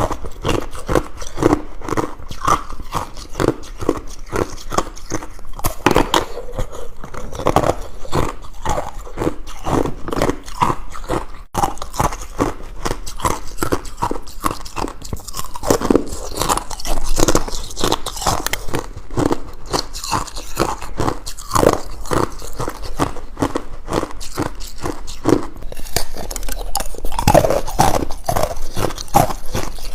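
Close-up crunching of ice being bitten and chewed, many rapid cracks with each bite.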